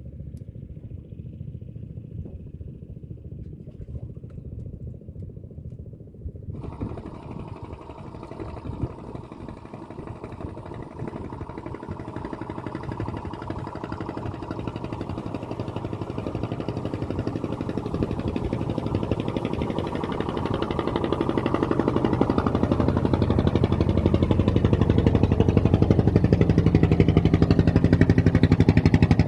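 A small engine running, growing steadily louder from about a third of the way in.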